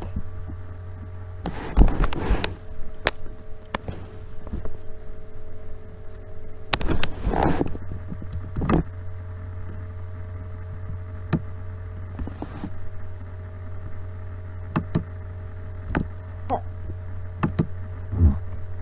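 Steady low electrical hum with a few faint higher steady tones above it. Scattered short clicks break it, with two brief clusters of noisy clicking and rustling about two and seven seconds in.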